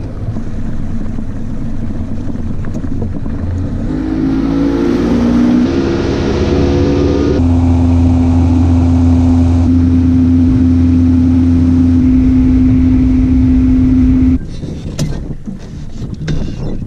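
Boat's outboard motor under way: the engine note climbs as it speeds up, then holds one steady pitch at running speed over a rushing hiss. Near the end the engine sound cuts off suddenly, leaving quieter noise and a few knocks.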